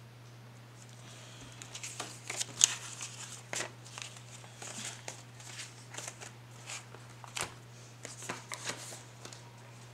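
Paper banknotes rustling and crinkling as a stack of cash is handled and counted out by hand, in a run of short, crisp sounds that begins about a second and a half in.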